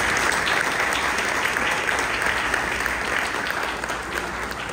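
Audience applauding: a dense patter of many hands clapping that slowly thins and fades toward the end.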